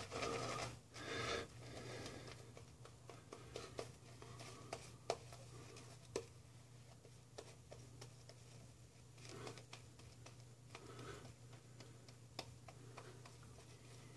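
Boar-bristle shaving brush (Semogue limited-edition boar) working lather onto a bearded face and neck: soft swishing strokes in the first couple of seconds, then faint, scattered bristle scratches and small clicks. A steady low hum runs underneath.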